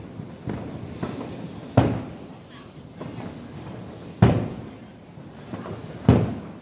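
Aerial fireworks shells bursting in a string of sharp booms, the strongest about two, four and six seconds in, each trailing off in a short rumble.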